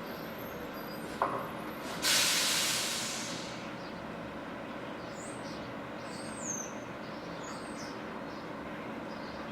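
Garbage truck engine running steadily, with a sharp click about a second in, then a loud hiss of released air about two seconds in that fades out over a second or so.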